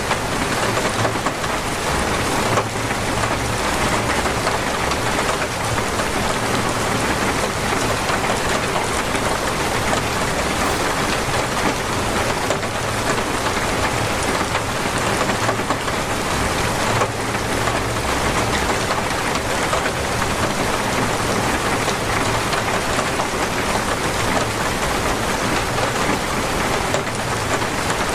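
Torrential rain pouring down steadily, a dense, even hiss of drops with no letup.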